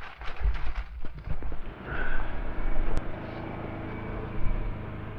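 A vehicle engine idling steadily from about two seconds in, a low even hum, with a single sharp click about a second later. Before the engine sound, irregular low rumbling and knocks of wind buffeting the microphone.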